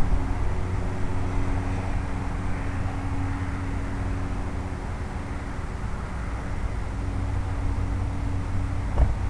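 Small RC airplane rolling along pavement, heard from its onboard camera: a steady rumble with a low hum. There is a bump right at the start as the wheels touch down, and another about nine seconds in.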